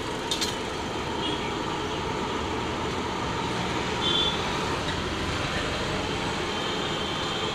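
Malpuas deep-frying in a wide kadhai of hot oil: a steady sizzle, with road traffic in the background and two light clicks shortly after the start.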